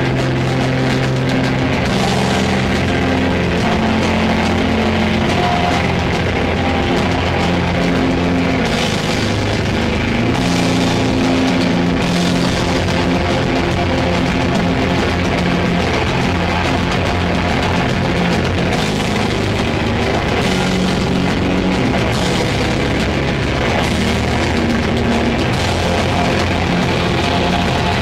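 A heavy metal band playing live at full volume: heavily distorted electric guitar and bass holding low, sustained riff notes over a pounding drum kit with crashing cymbals.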